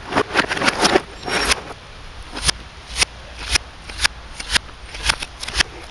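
Hammer blows on the wreckage of a smashed CRT television, played in reverse. A cluster of knocks and clatter comes in the first second and a half, then single sharp strikes follow at about two a second.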